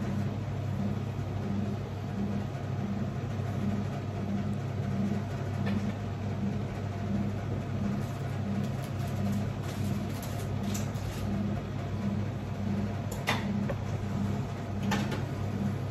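A steady low machine hum with a regular pulse, about three pulses every two seconds, and a few light clicks near the end.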